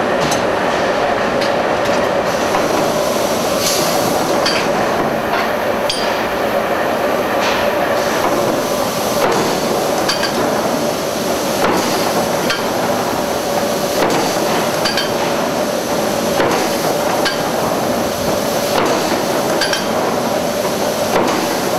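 Mechanical forging hammer striking a red-hot steel spade blank with sharp metallic blows at irregular intervals, about one every second or two. Under the blows runs a steady loud roar of forge machinery with a constant hum.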